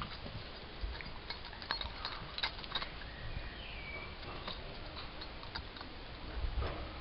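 Miniature schnauzers scuffling and play-fighting on a cloth sheet: scattered small taps, clicks and scrabbling of paws, with a brief high squeak about three and a half seconds in.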